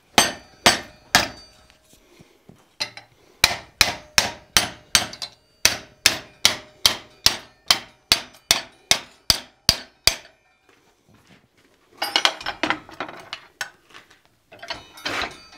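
Hand hammer striking a hot steel bar clamped in a vise to bend it over, a steady run of ringing blows at about three a second, with a short pause early on, that stops about ten seconds in. After it come short bursts of metal clatter as tools are handled.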